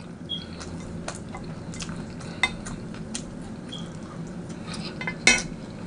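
Plastic fork scraping and clicking against a plate as food is scooped up and a mouthful taken, a scatter of small light clicks with one louder sharp click about five seconds in.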